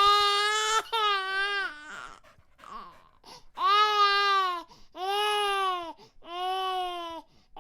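Infant crying: a run of about five loud wails, each about a second long, with short breaths between them.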